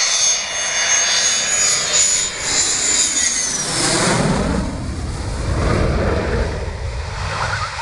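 F-16 fighter jet's engine passing low overhead on approach with its landing gear down. A high whine falls in pitch about three seconds in as the jet goes over, then gives way to a deep rumble as it draws away.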